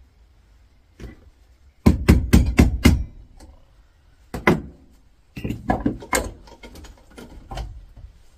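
Metal-on-metal hammer blows, about five in quick succession, on a fire extinguisher's brass valve clamped in a bench vise, trying to drive it out of the steel handle. These are followed by one more hard knock and a run of lighter metallic clinks and taps.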